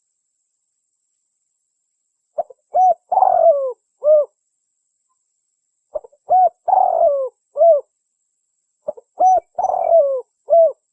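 Spotted dove (derkuku) cooing: three phrases about three and a half seconds apart, each a few short hooked notes around one longer falling coo, after about two seconds of silence. It is a recorded lure call played to draw in the birds.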